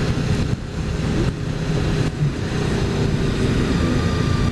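Motorcycle riding in strong, gusty wind: a loud, steady rumble of wind buffeting the camera's microphone, with the engine running steadily underneath.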